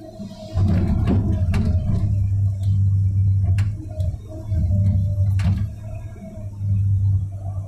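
Komatsu 290 excavator heard from inside its cab, the diesel engine and hydraulics working hard in three surges as the bucket digs into rocky ground, with sharp knocks of the bucket striking stones.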